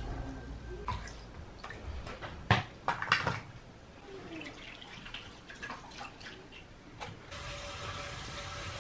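Water splashing and dripping, with a couple of sharp knocks about two and a half and three seconds in. Near the end a tap starts running steadily.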